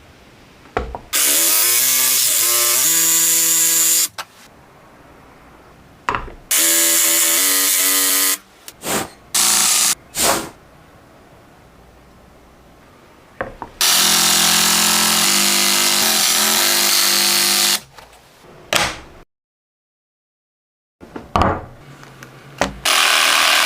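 Electric jigsaw running in repeated bursts of a few seconds each, with the motor's pitch shifting as it cuts, and short quiet gaps between runs.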